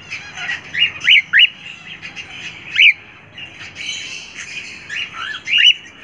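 Cockatiels calling: short, sharp, up-sweeping whistled squawks, three in quick succession about a second in, one near three seconds and another quick cluster near the end. Behind them runs a steady chatter of higher, fainter chirps from smaller birds.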